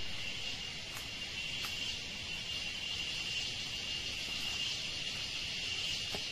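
Steady, high-pitched chorus of forest insects: one continuous buzzing drone.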